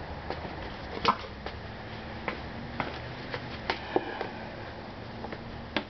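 Plastic body cover of a Honda Elite 110 scooter being handled and fitted back into place: scattered light clicks and knocks of plastic against plastic, the sharpest about a second in.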